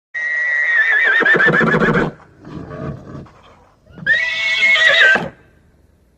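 An animal calling twice, each a loud call of one to two seconds with a wavering, quavering pitch, with softer short sounds in between.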